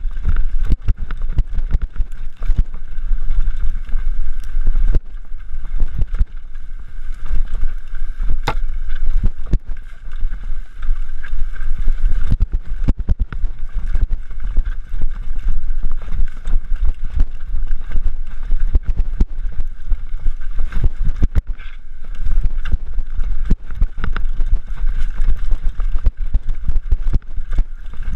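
Mountain bike rattling and knocking over rough downhill trail, with wind buffeting the microphone and frequent sharp knocks from bumps throughout.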